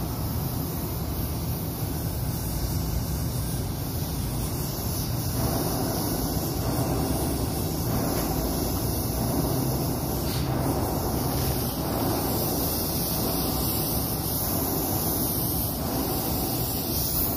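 Paint spray gun hissing steadily while spraying paint onto a steel beam, over a steady low rumble. The spray grows a little louder and fuller from about five seconds in.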